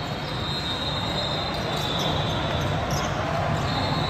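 Basketball bouncing on a gym court amid the steady noise of a game in a large hall.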